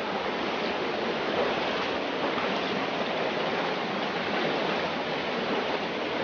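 Stream water rushing steadily over rocks in a jungle creek bed.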